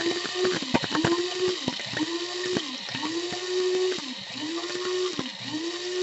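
Krups F203 blade coffee grinder pulsed in short bursts, about five in a row, its motor whine rising to speed, holding briefly and falling away each time. The blades are chopping coffee beans down to a fine espresso grind.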